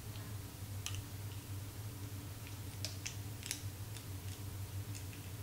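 A few faint clicks and crinkles from a small plastic squeeze tube of epoxy and a thin aluminum mixing pan being handled as the tube is squeezed into the pan, over a steady low hum.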